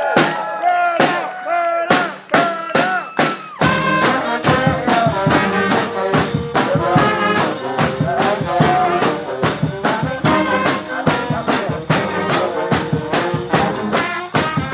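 Street brass band with drums playing an up-tempo tune: short brass stabs together with sharp drum hits at first, then about three and a half seconds in the full band comes in over a low brass bass line and a steady drum beat.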